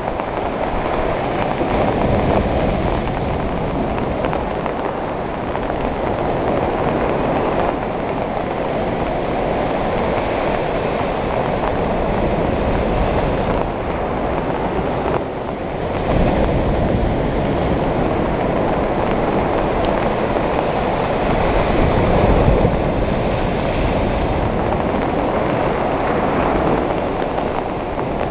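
Sea waves breaking on a beach: a steady rushing surf that swells and eases, with louder surges about two seconds in, around sixteen seconds and around twenty-two seconds.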